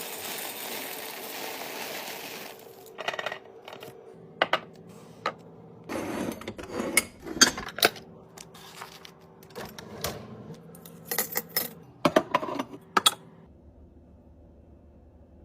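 Packaging and plastic containers handled by hand. A steady crinkling rustle for the first two and a half seconds, then a string of irregular clicks, taps and light clatters as items are set down, quieter near the end.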